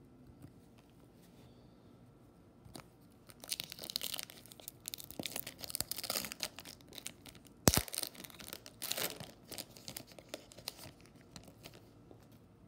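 Foil wrapper of a baseball card pack being torn open and crinkled in the hands, starting about three seconds in and going in crackling spells, with one sharp snap about halfway through.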